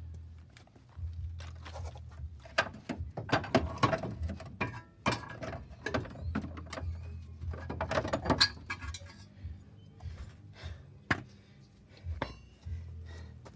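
A string of irregular knocks, clinks and thunks, some metallic, as tools, parts or a box are handled and set down, thickest in the first two-thirds and sparser near the end.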